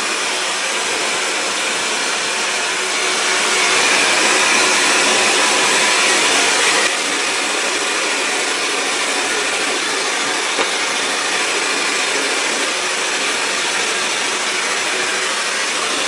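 GUGUG high-speed hair dryer (11,000 RPM motor) running steadily, a rush of blown air while it dries hair. It is a little louder for a few seconds, from about three to seven seconds in.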